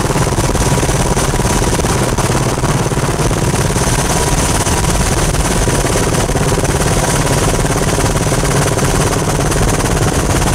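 Helicopter turbine engine and rotor running steadily in cruise, heard from on board: a continuous mechanical noise with a steady whine through it.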